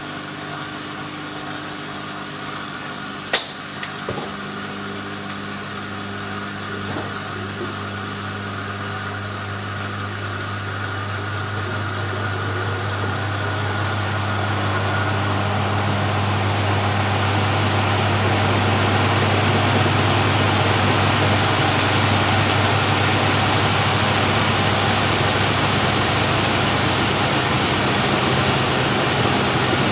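Simpson Esprit 550 washing machine running mid-cycle: a steady motor hum, a single sharp click a few seconds in, then a rushing noise that swells over several seconds and holds steady.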